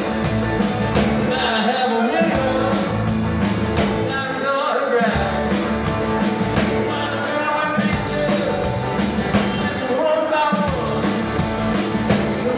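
Live rock and roll band playing at full volume: strummed acoustic guitar and electric guitar over drums, with a steady beat.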